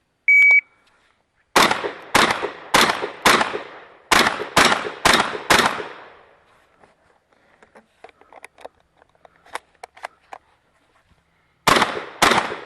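A shot timer's short start beep, then a string of about nine gunshots in quick succession over some four seconds, and two more shots near the end.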